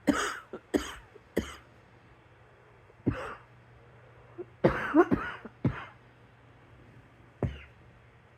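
A person coughing in short bouts: a quick run of three coughs at the start, a single cough, a tight cluster of several coughs around the middle, and one last cough near the end.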